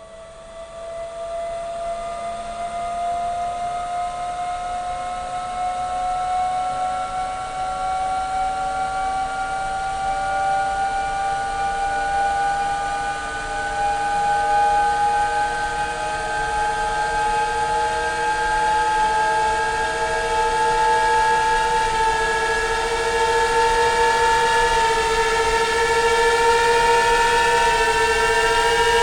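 A sustained, whistle-like chord of several tones that rises slowly and steadily in pitch while growing louder: a cinematic riser sound effect. A further higher tone climbs in more steeply over the last third.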